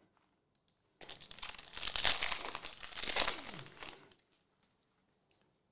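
Foil wrapper of a 2023 Optic UFC trading-card hobby pack being torn open and crinkled, starting about a second in and lasting about three seconds.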